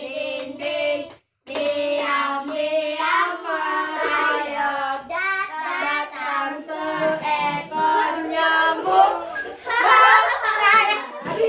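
A group of children singing a song together. The sound cuts out completely for a moment just over a second in, then the singing resumes.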